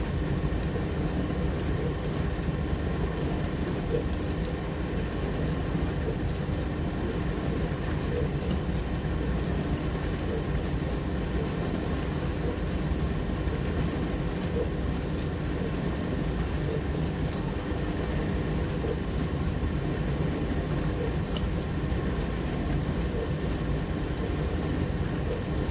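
Dishwasher running: a steady low rumble and rush of noise that does not let up, with faint scattered ticks.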